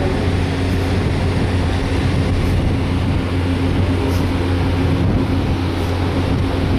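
Steady low rumble of machinery with a constant droning hum, unchanging throughout.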